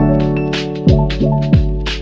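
Background music with a steady beat: deep bass drum hits about once a second under sustained keyboard chords and sharp percussion.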